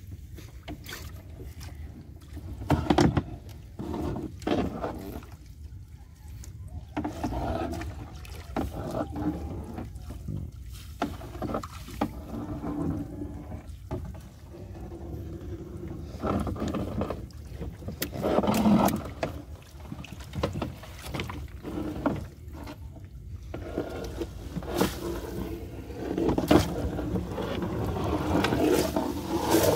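Fishing net being hauled by hand over the side of a small boat: water splashing and dripping off the mesh, with irregular knocks and scrapes against the hull.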